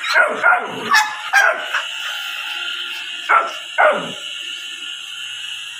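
Dog barking in short, sharp barks: four quick barks, then two more about two seconds later.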